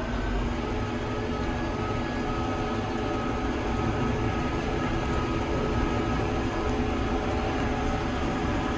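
Massey Ferguson 6713 tractor's diesel engine and drivetrain running steadily in gear at speed, heard from inside the cab: a low rumble with a steady whine.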